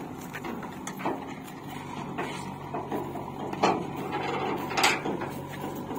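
Heavy machinery's diesel engine running steadily at an even pitch, with several sharp knocks and clanks over it, the loudest two near the middle and towards the end.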